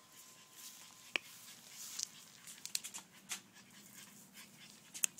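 French Bulldog puppies panting softly while they play, with a few scattered light clicks.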